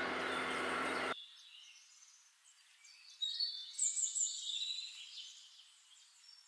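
A steady low background hum that cuts off suddenly about a second in. From about three seconds in, high, thin chirps and short whistles from birds calling last for about two seconds.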